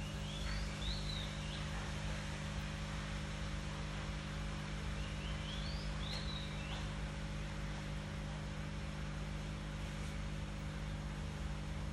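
Steady low hum under an even hiss, with a small bird's short run of chirps twice, once about half a second in and again around five to six seconds in.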